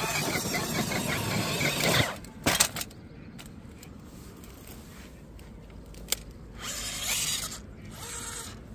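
Axial Wraith RC rock crawler's Fusion 1800 brushless motor and geared drivetrain whining hard under load on a steep rock climb for about two seconds, then cutting off. A couple of sharp knocks follow as the truck rolls over onto its roof, and a shorter burst of motor noise comes near the end.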